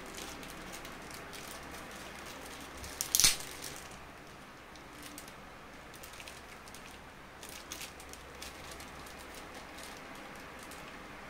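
Clear plastic packaging being handled and peeled off by hand, crinkling, with one sharp loud crackle about three seconds in and a few small clicks later.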